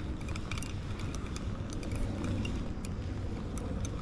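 Irregular sharp clicks and rattles of a fishing reel and rod being worked as a hooked fish is fought, over a steady low rumble.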